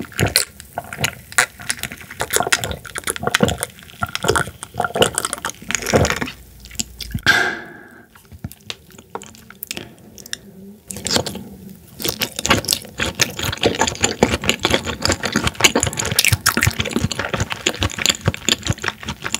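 Close-miked drinking from an iced glass mug, with repeated swallows, ending in a short pitched exhale. After a quieter pause comes steady wet chewing of raw horse mackerel sashimi, with moist mouth clicks and lip smacks.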